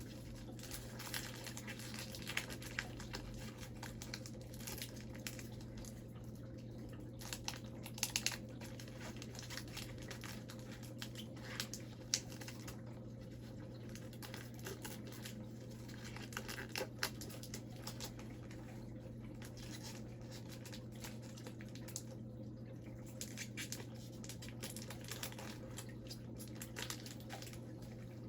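Upper Deck hockey card pack wrapper being torn open and crinkled, with scattered short crackles and a few sharper clicks as the cards are handled, over a low steady electrical hum.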